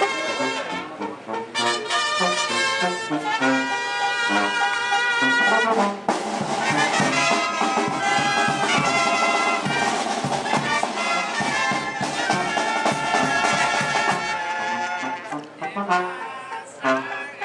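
Brass band music, with trumpet- and trombone-like horns playing a tune over a steady low beat; it gets quieter near the end.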